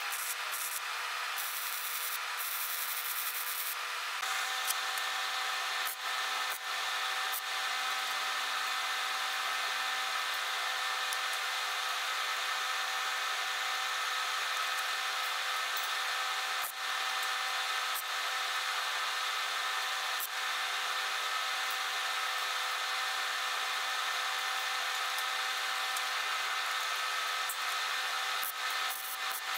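Power grinder working steel, a continuous abrasive rasp with a steady whine over it. Its tone shifts slightly about four seconds in, then holds evenly throughout.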